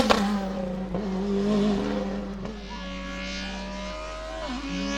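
Race car engine at high revs under hard acceleration. A sharp crack comes right at the start, then the engine holds steady and fades as the car pulls away, its pitch dipping briefly near the end.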